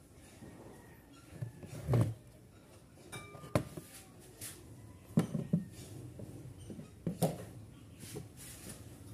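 Scattered knocks and clatter of kitchenware being handled, with one sharp clink that rings briefly about three and a half seconds in.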